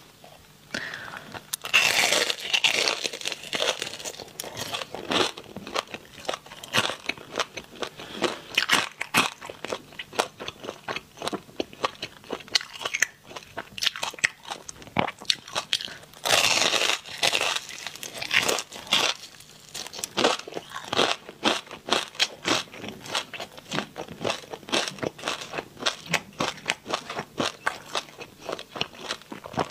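Crispy deep-fried pork belly crackling being bitten and chewed: a run of sharp crunches, loudest about two seconds in and again around halfway.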